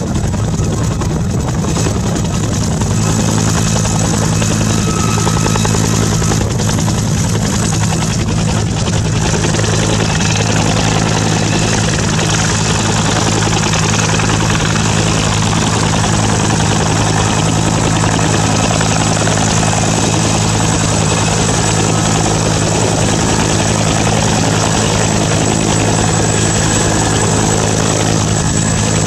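Turbine helicopters hovering and setting down: a Bell UH-1D Iroquois, then a Gazelle, with steady rotor and turbine noise and a thin high whine over it.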